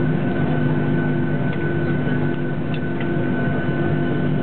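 Boeing 737-800's CFM56 jet engines at idle thrust during taxi, heard inside the cabin as a steady hum with several held tones and one higher whine. A few faint clicks come through about midway.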